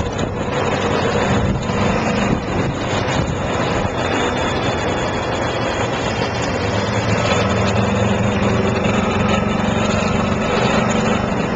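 Golf cart motor running steadily, heard from aboard the moving cart with road noise; its low hum grows stronger about two thirds of the way in.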